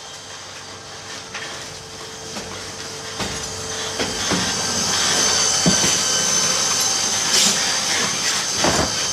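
Heil RevAMP fully electric side-loader garbage truck rolling up and drawing alongside, growing louder, with a steady high whine from about four seconds in and a few sharp clunks.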